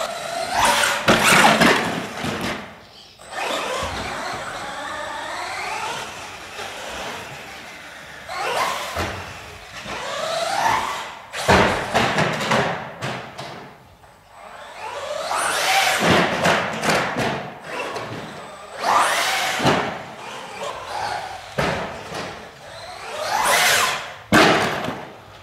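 The brushless electric motor of a 4x4 RC short-course truck whines up and down in pitch as it repeatedly accelerates and slows, with tyre noise and a few thuds from landings and knocks on the track.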